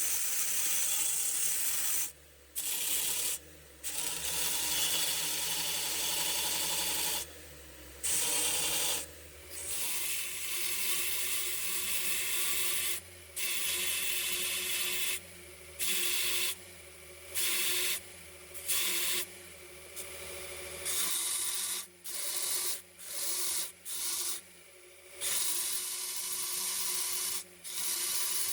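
Wooden handle being sanded on a belt sander: a hiss of abrasive on wood in repeated passes, broken by short pauses, over the sander's steady motor hum. The motor hum stops about 21 s in, and the rubbing goes on in short strokes.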